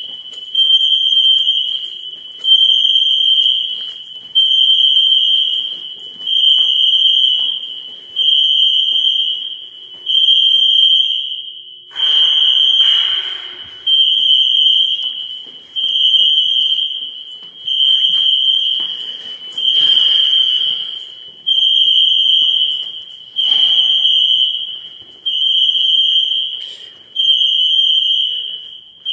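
Electronic alarm beeping a single high-pitched tone over and over, each beep about a second and a half long with a short gap, about one every two seconds.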